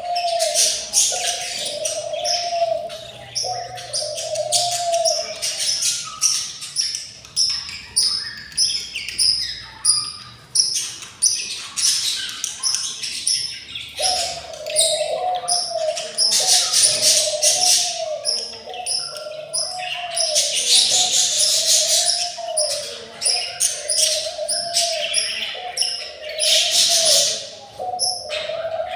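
Budgerigars chirping and chattering, with many short high chirps and raspy, noisy bursts typical of hungry budgie chicks begging. Under them a low warbling note repeats about once a second, dropping out for a while near the middle.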